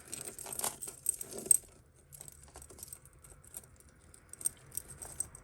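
Tangled costume-jewellery chains and beads clinking and jangling as they are handled and pulled apart, busiest in the first second and a half, with one louder click, then lighter scattered clicks.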